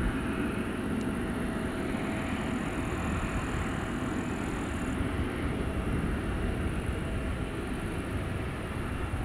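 Boeing 777-200ER's twin jet engines at taxi idle as the airliner rolls by, a steady rumble with a faint high whine that fades out about halfway through.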